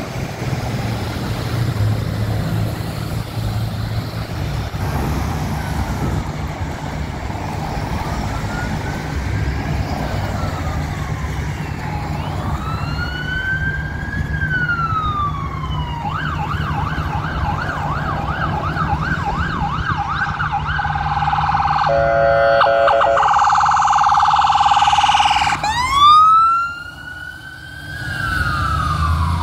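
BC Ambulance Service ambulance siren over passing road traffic. For the first dozen seconds there is only traffic noise. Then the siren wails slowly up and down, switches to a fast yelp partway through, holds a steadier high warble with a brief lower blast, and near the end goes back to a loud wail.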